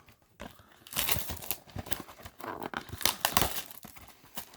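A small product box being torn open by hand, with irregular crinkling and rustling of its packaging starting about a second in.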